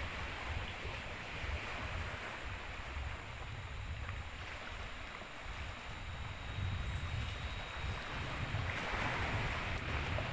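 Wind rumbling and buffeting on the microphone over a steady wash of sea water.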